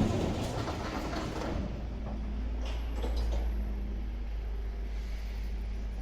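A Tobu Skytree Line train running past on the tracks. The sound sets in suddenly at the start and then runs on steadily.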